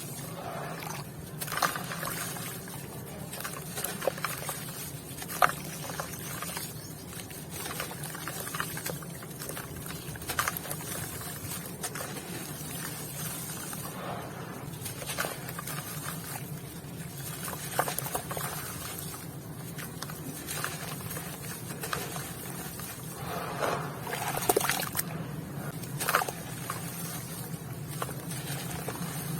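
White cement with grains being crumbled, partly wet: irregular crunchy crackles and crinkles, with a few louder clusters, over a steady low hum.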